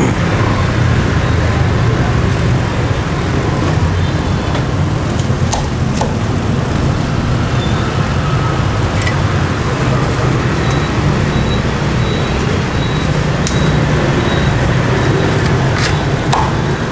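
Steady street traffic noise with a low hum, broken by a few sharp knocks of a cleaver striking a wooden chopping block as roast pork is chopped.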